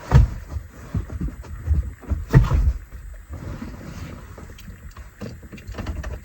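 A vehicle driving on a rough dirt track, heard from inside: a low rumble with repeated knocks and rattles as it bumps along, the loudest knocks near the start and about two and a half seconds in.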